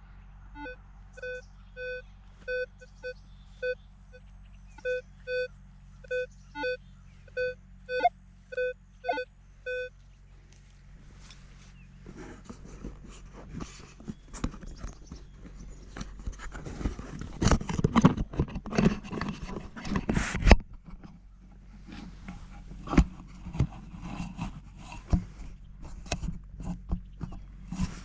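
Metal detector signalling a target with a string of short, evenly spaced electronic beeps, about two a second, for roughly the first ten seconds; the pitch rises briefly near the end of the run. Then irregular scraping and knocking of digging in soil, loudest about two-thirds of the way in.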